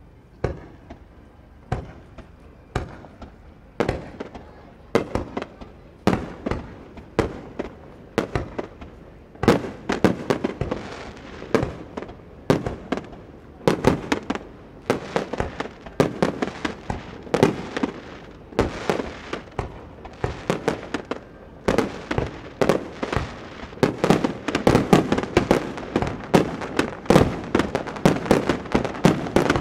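Aerial fireworks shells bursting in a barrage: single bangs about a second apart at first, then coming faster and overlapping into a dense volley in the second half.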